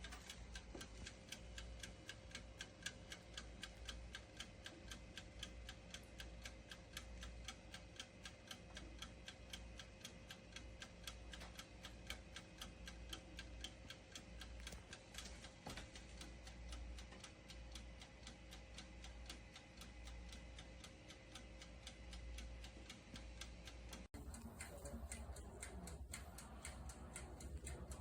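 Faint, rapid, steady ticking of a toaster oven's mechanical 15-minute timer as it runs down.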